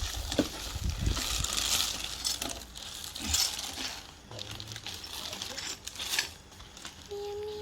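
Bubble wrap and plastic packaging crinkling and rustling as they are handled, with scattered clicks and light knocks.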